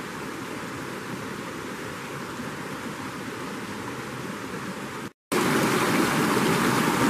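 Mountain creek water flowing with a steady rush. About five seconds in it cuts off for a moment and comes back louder and brighter, as water rushing over boulders in a small cascade.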